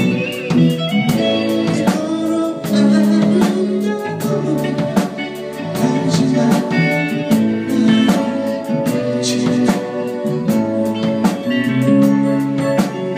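Live band music: electric guitar and a drum kit playing a song together, with steady drum and cymbal hits keeping the beat.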